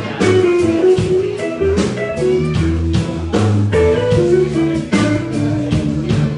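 Live band music: a guitar carries a melodic line over bass and drums, with a steady beat.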